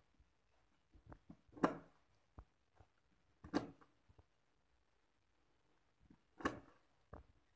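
Cleaver chopping down onto a wooden chopping board, cutting the tips off small snail shells: three sharp chops about two to three seconds apart, with light clicks of the shells being set in place before each.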